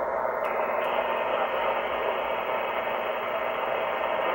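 Shortwave receiver static and hiss from a Kenwood R-1000 tuned to an AM station, with no voice coming through. About half a second in, and again about a second in, the RadioShack DSP noise-reduction unit's bandwidth switch is clicked a step wider, and each time the hiss turns brighter.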